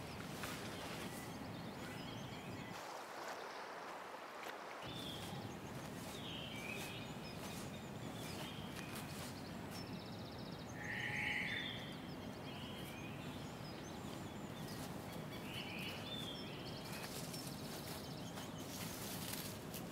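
Outdoor ambience: a steady low hiss with scattered short bird chirps, one louder call about eleven seconds in.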